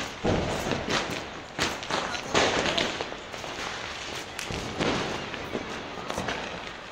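Diwali firecrackers and fireworks going off around the neighbourhood: an irregular string of bangs and crackles, overlapping, each trailing off briefly, with the loudest ones in the first three seconds.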